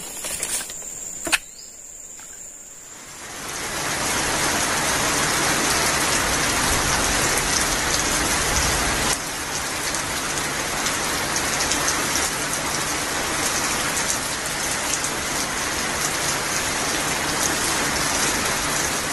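A couple of sharp knocks in the first second or so, then from about three seconds in, steady loud rainfall that holds even to the end.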